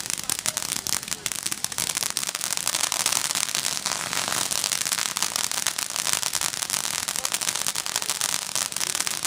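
Consumer fireworks crackling: a dense, rapid run of small pops that goes on without a break.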